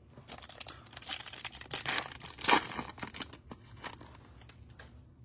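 A foil trading card pack being torn open and its wrapper crinkled, a run of irregular sharp rustles and crackles with the loudest crackle about two and a half seconds in.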